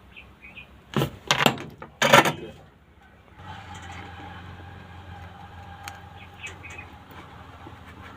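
A charger plug being pushed into a portable speaker's newly soldered charging jack and the unit handled: a few clattering knocks about one and two seconds in, then a steady hum with a faint tone from about halfway through.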